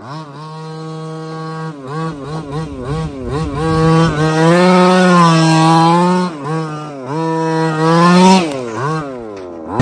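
Small two-stroke petrol engine of an HPI Racing 1/5-scale RC truck, about 25 cc, revving in quick blips, then held at high revs for about two seconds, revving high again, and falling back toward idle near the end.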